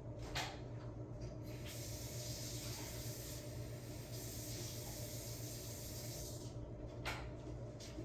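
A steady hiss starts a couple of seconds in and lasts about five seconds, over a constant low hum.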